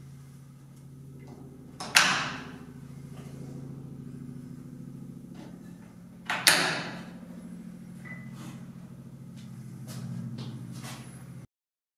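Hinged wooden track section being swung into place and folded down, knocking sharply against its frame twice, about two seconds in and again about six and a half seconds in, with lighter clicks between, over a steady low hum. The sound cuts off shortly before the end.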